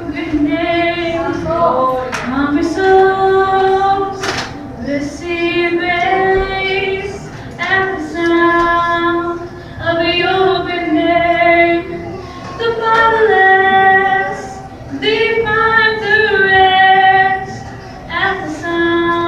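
Two women singing a worship song in phrases of long held notes, with short breaks between phrases.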